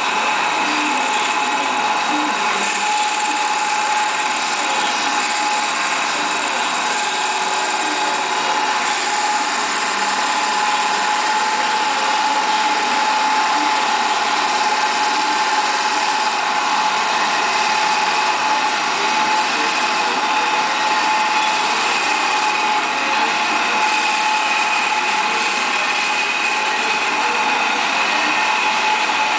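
Tormach 1100 CNC with Duality Lathe turning a wooden spindle: a steady machine whine with a couple of constant tones, with the cutting tool shaving the spinning wood.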